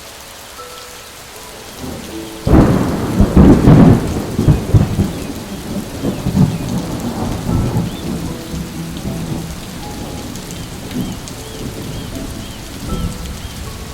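Steady rain, with a thunderclap that breaks suddenly about two and a half seconds in, crackles loudly for a second or so, then rumbles away over several seconds.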